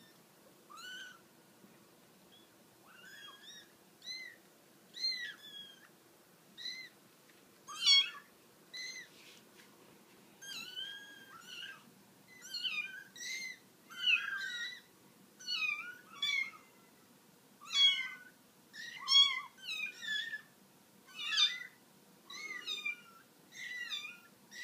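Kittens mewing: short high-pitched mews, a few scattered ones at first, then coming about once or twice a second from about ten seconds in.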